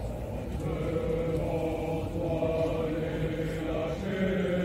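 A group of voices chanting together in unison in long held notes, starting about half a second in.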